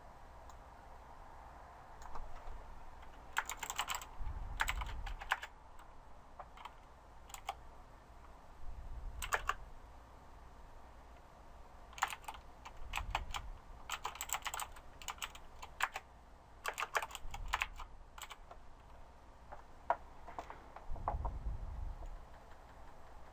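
Typing on a computer keyboard in irregular bursts of rapid key clicks with short pauses between, plus a few dull low thumps.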